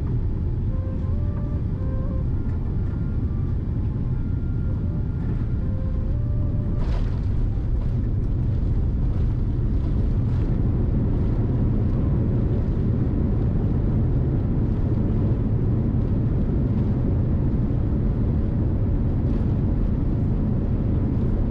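Cabin-side roar of a Boeing 787-10 landing: a steady low rumble with a sharp thump about seven seconds in as the wheels touch down. The aircraft then rolls out on the runway with its spoilers deployed, the rumble a little louder from then on.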